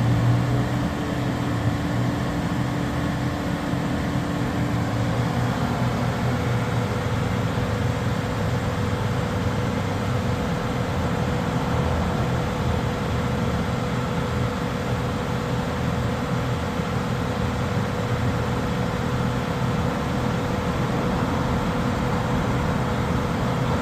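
Diesel engine running steadily during a forced diesel particulate filter regeneration, burning off a badly clogged filter. A steady higher whine sets in about four seconds in and holds.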